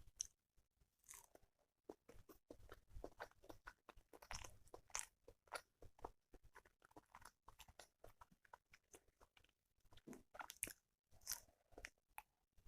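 Close-miked chewing of banana: a quiet, irregular stream of short mouth clicks and smacks, a little louder about four to five seconds in and again around ten to eleven seconds.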